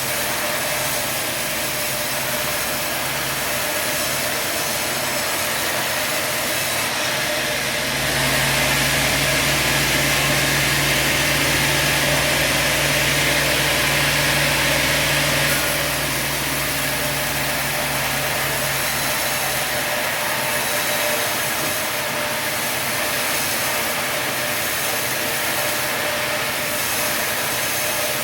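Sawmill running steadily, its engine-driven drone louder for about seven seconds in the middle, with a stronger hiss over the hum, before settling back to the steady running level.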